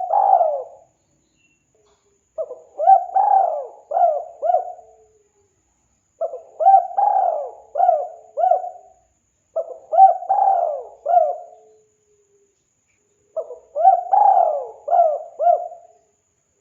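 Spotted dove (tekukur) cooing. There are four full phrases of several quick, curving coos each, with the end of another phrase at the very start, and pauses of about a second between phrases.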